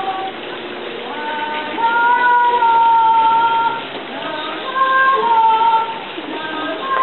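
A woman's voice singing slow, long-held notes without instruments, sliding gently between pitches; it grows louder about two seconds in and again around five seconds.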